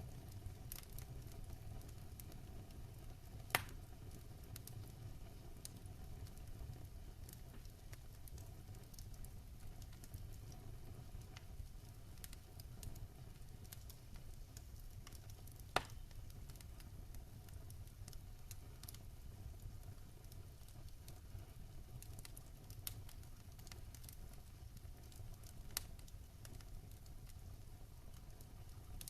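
Wood fire in a fire pit burning steadily with a low rumble, crackling with scattered sharp pops, the two loudest about three and a half and sixteen seconds in.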